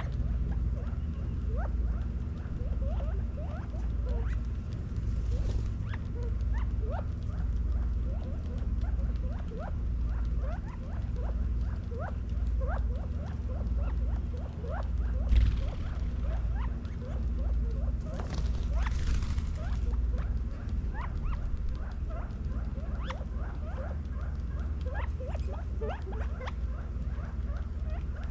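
A small flock of quail feeding, giving many soft, short chirping contact calls, with light pecking taps on concrete. A steady low hum runs underneath, and a few brief hissing rustles come through, the loudest about fifteen seconds in.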